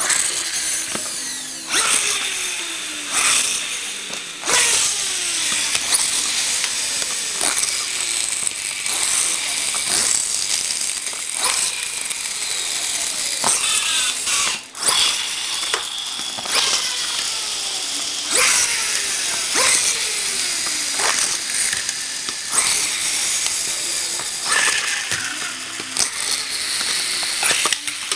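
Spring-wound pull-back motors in small toy trains, launched one after another. Each gives a ratcheting whir of small gears that falls in pitch as the spring runs down, repeating every second or two.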